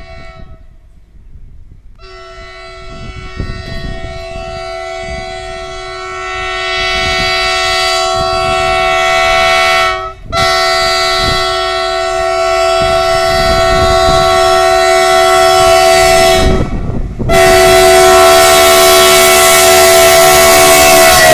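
Oncoming freight train's locomotive horn sounding three long, steady blasts, with short breaks between them, growing steadily louder as the train approaches through the fog. Under the horn, the train's rumble builds as it draws level.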